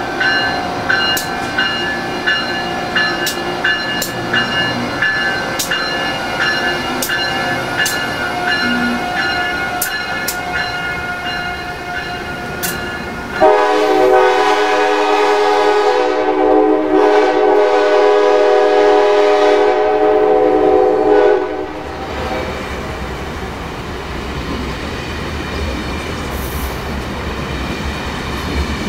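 Amtrak passenger train, an AEM-7 electric locomotive and stainless coaches, rolling past with wheels clicking over rail joints about once a second. About halfway through a train horn sounds one long steady blast of about eight seconds, then the coaches keep rolling past with a lower rumble.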